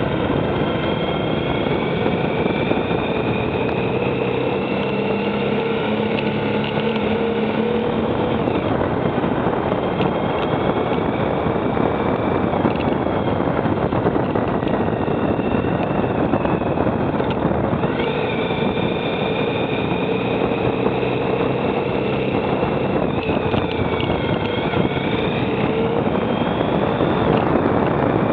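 Motorcycle engine running on the move under a steady rush of wind on the microphone. The engine note fades about eight seconds in, comes back about ten seconds later, and rises and falls in pitch as the revs change.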